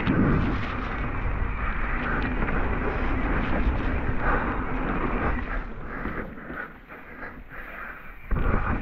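Mountain bike riding a wet, muddy trail: tyres rolling on slick dirt with frequent rattling knocks from the bike over bumps, under wind buffeting a GoPro's microphone. The noise eases for a second or two near the end, then comes back loud all at once.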